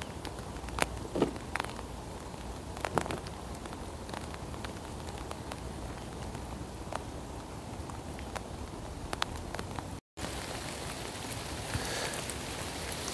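Rain falling on an open woodland lane: a steady hiss with scattered sharp drops tapping close to the microphone, most of them in the first few seconds. The sound cuts out for an instant about ten seconds in.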